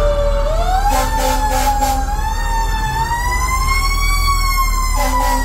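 Fire truck siren winding up, its pitch rising slowly over about four seconds and then easing back down near the end, over the steady drone of the truck's engine.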